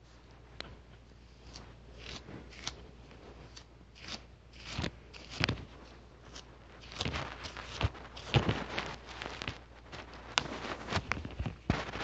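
Irregular clicks, crackles and short rustling noises over a faint low hum. They are sparse at first and become denser and louder from about a third of the way in.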